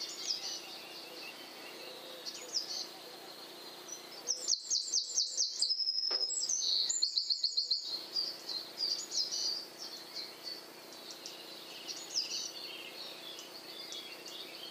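Small songbirds chirping and calling, with a loud, fast run of repeated notes from about four to eight seconds in: robins and blue tits scolding a grey squirrel at a feeder.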